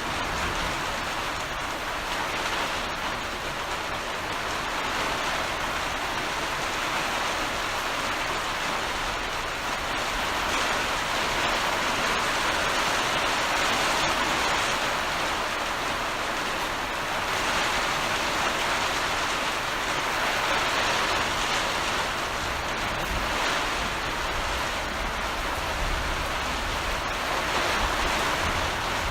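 Heavy rain falling as a steady, dense hiss that swells and eases slightly. A low rumble comes in over the last few seconds.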